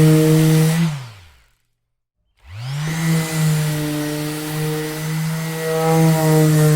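Electric orbital sander running with a steady hum, switched off about a second in so that its motor winds down in pitch to silence, then switched back on, spinning up and running steadily again.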